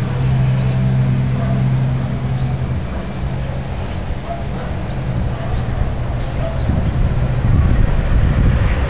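Outdoor traffic noise from a busy road, with a steady low hum in the first few seconds and short high chirps repeating throughout; the low rumble grows louder near the end.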